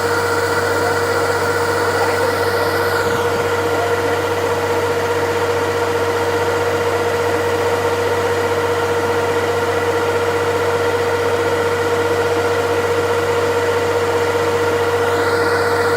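Kubota Harvest King DC68G combine harvester running steadily, an even engine drone with a constant high-pitched whine over it.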